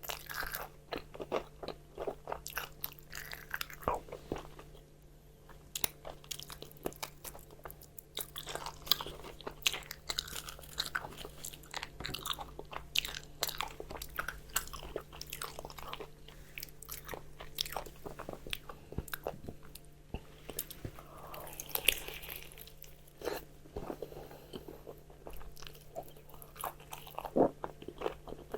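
Close-miked eating of crispy fried chicken: repeated crunchy bites through the fried coating, with chewing between the bites.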